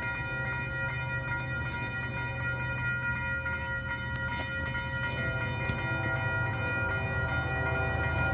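Railway level crossing warning bell ringing steadily, while the rumble of an approaching freight train grows slightly louder in the second half.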